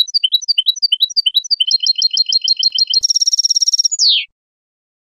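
Recorded European goldfinch song in the Málaga style, the kind used to tutor young goldfinches and goldfinch–canary hybrids. A string of quick rising chirps gives way to an even trill, then a faster buzzy trill about three seconds in, and ends with one falling note about four seconds in.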